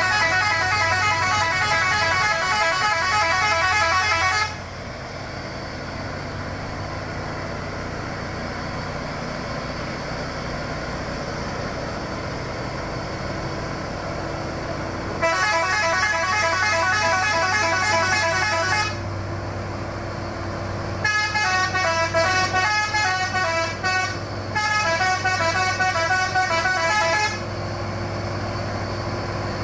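The modified horn of a Fuso dump truck plays a musical horn in quick runs of changing notes, in three stretches: for the first four seconds or so, again for about three seconds midway, and for about six seconds near the end. Between the stretches the truck's engine runs steadily.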